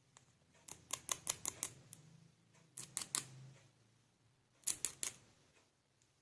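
Sharp clicks and taps of hard plastic toy pieces being handled and fitted together, in three quick bursts: about six clicks about a second in, three around the middle, and three or four near the end.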